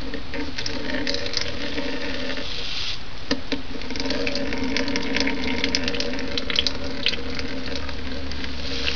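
Hemp milk running in a thin stream from a cloth nut milk bag into a bowl as it is strained, trickling and splashing steadily with a brief dip about three seconds in.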